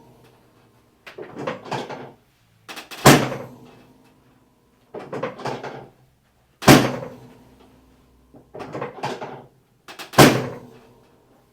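Drop section of a chiropractic drop table snapping down under the adjusting thrust three times, about three and a half seconds apart, each a loud clack. Before each clack comes a short run of softer clicks and rustling.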